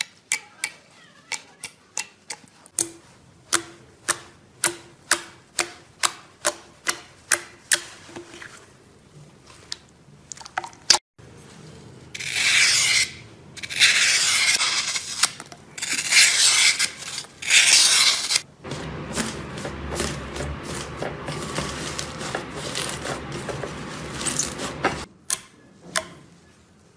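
Clear slime being pressed by fingers, giving sharp sticky pops about two or three a second. Then comes a utility knife blade scraping dry floral foam in loud gritty strokes, followed by a steady rasping hiss, and a few more slime pops near the end.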